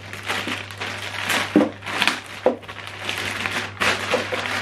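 Clear plastic bag crinkling and rustling as hands open it and rummage through the cables inside, with a few sharp clicks and knocks.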